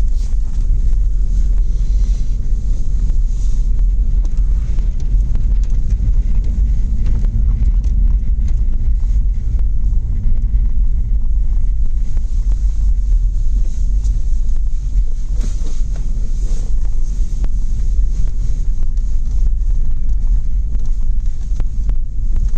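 Steady low rumble from a 2004 Toyota Land Cruiser with a 4.0-litre engine driving over a partly snowy unpaved track: engine and tyre noise, with no change in pace.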